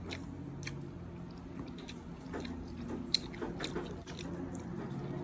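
Chewing food with soft mouth clicks and smacks, irregular and scattered, over a faint steady low hum.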